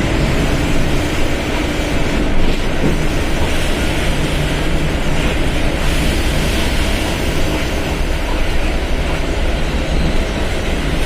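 Mercedes-Benz OF1721 BlueTec 5 bus's diesel engine running steadily, a continuous deep rumble with no rise or fall in pitch.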